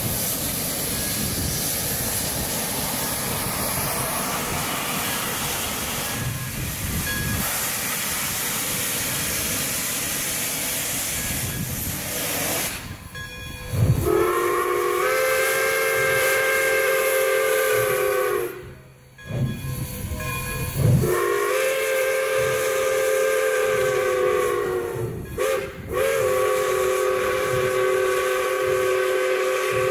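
Steam locomotive 1225's chime whistle sounding three long blasts, each a chord of several notes that slides up slightly as it opens, the last held on. Before the whistle, about 13 seconds of steady loud rushing noise.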